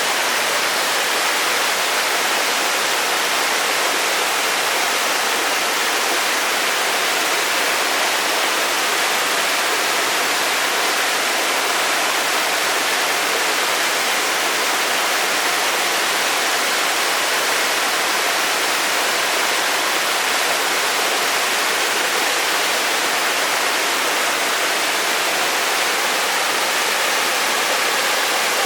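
Waterfall pouring steadily: an even, unbroken rush of falling water, hissy and bright, with no distinct splashes or changes.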